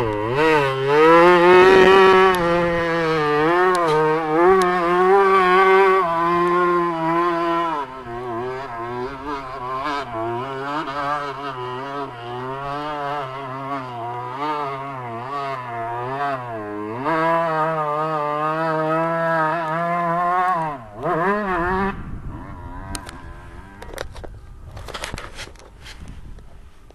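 Dirt bike engine revving hard under load on a hill climb, its pitch rising and falling with the throttle. The pitch drops lower about eight seconds in and rises again near seventeen seconds. It dips and fades away after about twenty-two seconds, leaving only faint clicks.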